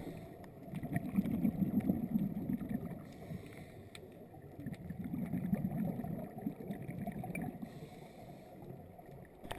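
Muffled underwater sound heard through a camera's waterproof housing: a low rush of moving water that swells twice, with faint scattered clicks.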